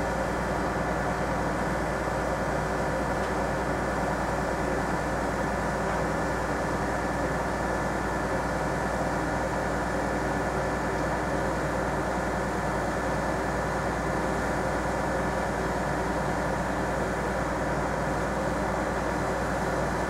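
Diesel engine of a moored 330-ton gravel carrier running steadily: a constant machine drone with a low hum and fixed tones, no change in speed.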